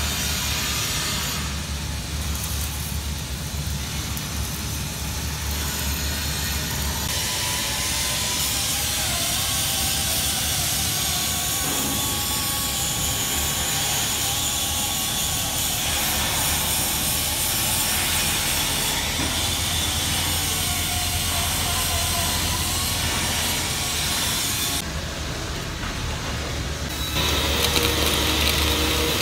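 Steady workshop noise: a constant hiss over a low hum, growing louder about two seconds before the end.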